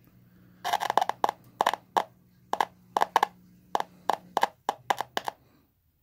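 Sharp, irregular pops and crackles from a Maono portable voice amplifier's speaker as the supplied headset's plug is touched and wiggled in its jack, over a faint steady hum that stops near the end. The owner blames the popping on the cheap two-ring headset plug, not the amplifier.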